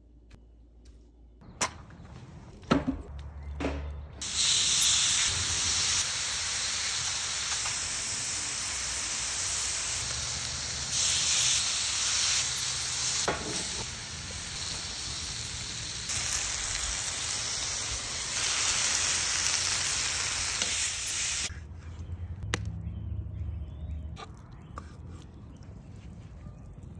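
Skirt steak and shrimp sizzling on a fire pit's sear plate over a wood fire: a loud, steady sizzle that starts about four seconds in and cuts off sharply well before the end. Quieter scattered clicks and taps come before and after it.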